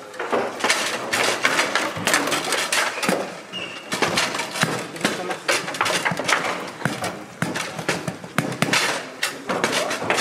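Quick, irregular clacks and knocks of the ball against the player figures and table walls, with rods and figures clattering, during fast play on a Bonzini foosball table.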